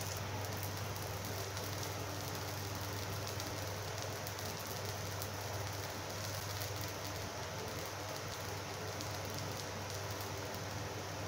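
Pancake batter frying in butter in a nonstick frying pan: a steady sizzle with fine crackles, over a steady low hum.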